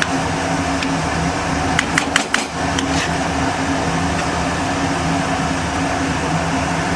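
Steady electric fan hum with a low motor drone, and a few light clicks about two seconds in.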